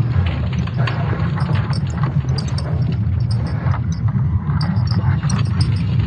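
Sonified recording of Earth's electromagnetic field: a low, steady rumble with scattered crackles and clicks.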